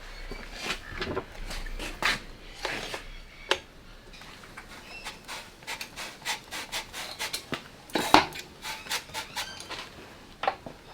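Hands-on work on a mountain bike's saddle: scattered light metallic clicks, taps and rubbing as the saddle is slid back on its rails and its clamp is worked with tools.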